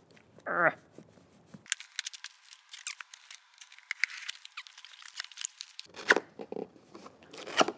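Packing tape torn off a cardboard box, then the flaps opened and a small inner box lifted out, with cardboard scraping, rustling and knocking. The middle stretch is played sped up, so it sounds thin and high, and the handling noise comes back fuller near the end.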